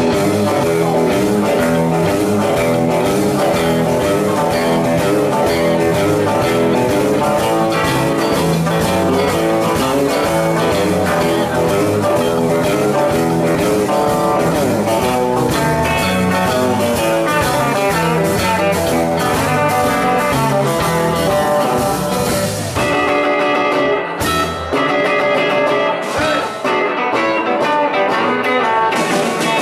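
Live blues band playing an instrumental: electric guitar lead over a second electric guitar, electric bass and drum kit. About three-quarters of the way through, the cymbals and bass drop back, leaving the guitar more exposed over sparser hits.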